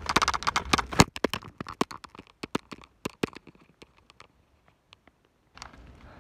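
Handling noise on a handheld camera's microphone: a rapid run of sharp clicks and crackles, densest in the first two seconds and thinning out, then near silence for about a second before a low steady background rumble returns near the end.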